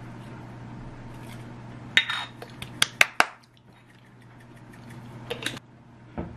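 Kitchenware clinking as a fried egg is served from a frying pan onto a ceramic plate: a cluster of sharp clinks about two to three seconds in, a few lighter clicks near the end and a last knock, over a steady low hum.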